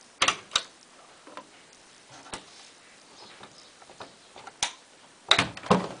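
Program selector dial of a Hoover washing machine clicking as it is turned through its positions: a few sharp, separate clicks, with a louder pair of knocks near the end.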